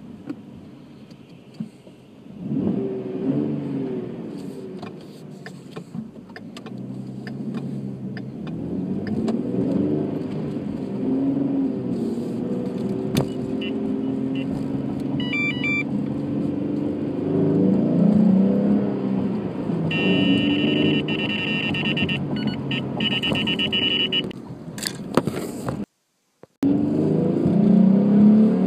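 Ford 3.7-litre V6 of a 2015 Mustang with an Airaid cold air intake, heard from inside the cabin, revving up and easing off several times as the car accelerates. The sound cuts out for about half a second near the end.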